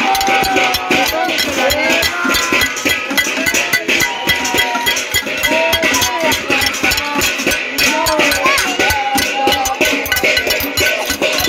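Pots and pans being beaten fast and continuously in a casserole protest, a dense metallic clatter, with voices calling out over it.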